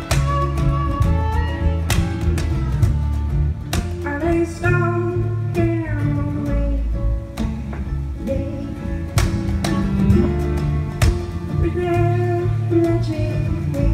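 Live folk band playing: acoustic guitar over a low electric upright bass, with regular percussion hits from a washboard-and-drum kit and some sliding melodic notes in the middle.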